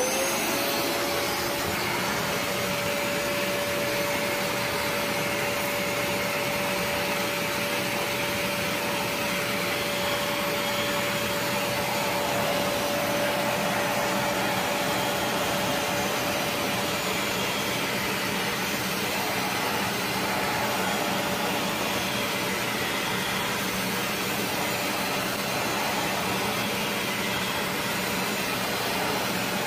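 Bissell 3624 SpotClean Professional portable carpet cleaner switched on: its suction motor spins up within the first moment, then runs steadily with a constant whine over the rush of air.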